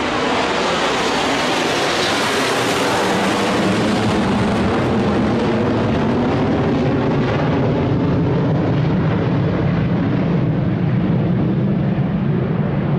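Loud, steady engine-like rumble. Its high hiss slowly fades while the low rumble grows stronger.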